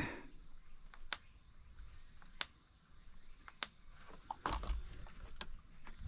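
A few sharp, separate clicks and one duller knock about two-thirds of the way through. They come from handling the controls of a Stihl MS 194 TC top-handle chainsaw while it is being readied to start. The engine is not running.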